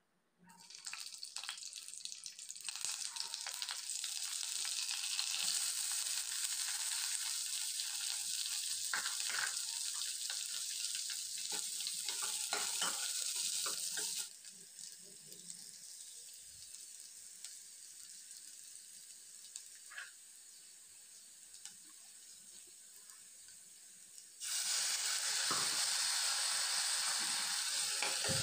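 Hot oil sizzling in a stainless steel pan as chopped onions, green chillies and curry leaves fry with whole spices. The sizzle builds over the first few seconds, quietens about halfway through with occasional clicks of the ladle stirring, and turns loud again near the end.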